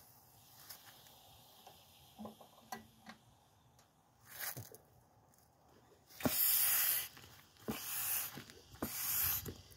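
Several short hissing bursts, each under a second, one about halfway through and three more in the last few seconds, the loudest of them about two-thirds of the way in. Faint clicks and knocks fall between them.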